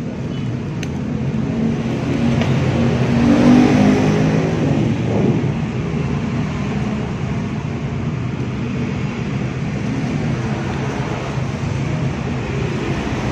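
A motor vehicle engine passing, its drone growing to its loudest about four seconds in and then settling into a steady background rumble.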